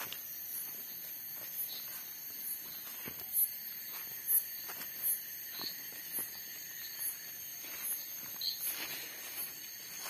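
Night insect chorus: a steady high-pitched buzz with short, sharp high chirps repeating roughly once a second, over the faint rustle of footsteps through undergrowth.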